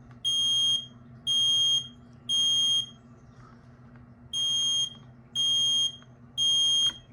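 Kidde P12040 photoelectric smoke alarm sounding its temporal-three pattern: three half-second high-pitched beeps, a pause, then three more. Its horn is partly covered with tape, which makes it quieter than it would otherwise be.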